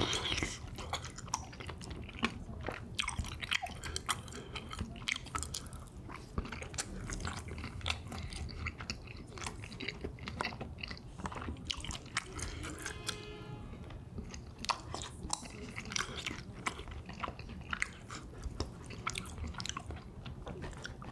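A person eating spicy pork cartilage and cream tteokbokki: steady mouth-full chewing with many crisp, crunchy clicks and wet smacks.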